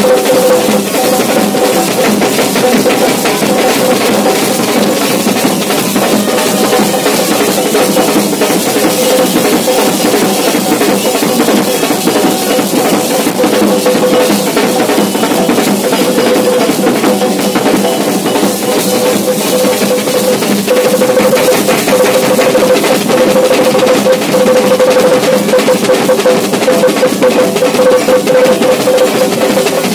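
Yakshagana background ensemble playing fast battle-scene drumming on chande and maddale over a steady drone tone.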